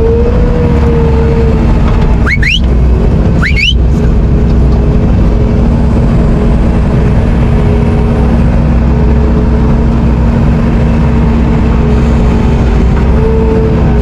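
Bobcat T770 compact track loader's diesel engine running steadily under work, its tone wavering slightly, with two brief rising squeals a couple of seconds in.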